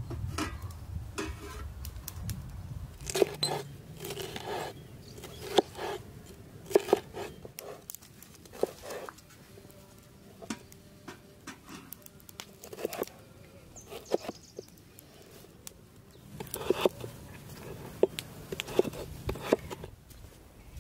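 Large kitchen knife cutting bell peppers on a wooden cutting board: irregular sharp knocks of the blade striking the board, with denser chopping near the end.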